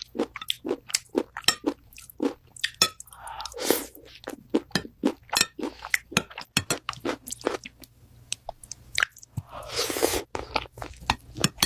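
Close-miked mukbang-style eating sounds, AI-generated: rapid crunching and wet chewing made of many sharp clicks and crackles, with two longer hissy sounds around four and ten seconds in.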